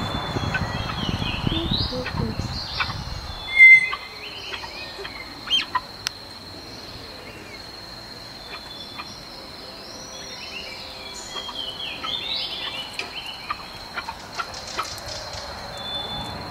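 Small birds chirping, with short high calls scattered throughout over a thin steady high tone. A low rustle fills the first few seconds, and there is one brief loud sound just before four seconds in.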